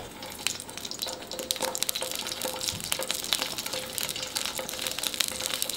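Eggplant slice sizzling on a hot grill plate, with many small crackles and pops.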